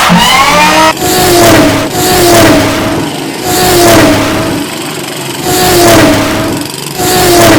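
Race-car engine sound effects: a quick rising rev at the start, then a series of loud engine whines, each falling in pitch, about one every second and a half.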